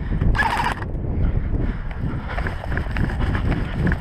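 Footsteps and gear rustling as a player moves quickly over rocky dirt, a scatter of small knocks and crunches over a constant low rumble of wind on the microphone.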